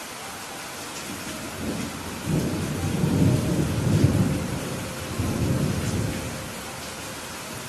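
Steady rain with a roll of thunder that rumbles in about two seconds in, swells to its loudest in the middle and dies away about six seconds in.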